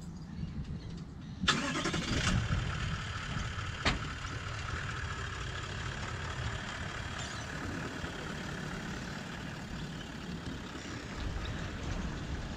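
A Toyota LandCruiser ute's engine starts suddenly about a second and a half in, then runs at a steady idle. A single sharp click sounds about four seconds in.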